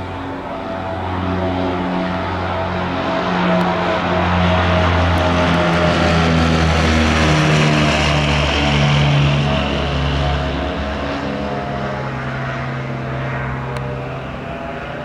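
Twin-engine Tecnam P2006T light aircraft on a low pass over the runway, its two Rotax 912 engines and propellers droning. It grows louder to a peak around the middle, then fades as it goes by.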